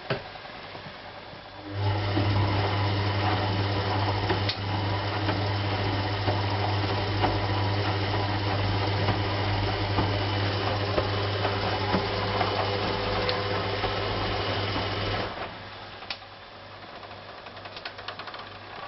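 Hoover Electron 1100 washing machine's motor runs with a steady electric hum for about thirteen seconds, starting about two seconds in and cutting off sharply. This is typical of the wash stage of its Program D whites economy cycle. Before and after it, the machine is much quieter, with a few faint clicks.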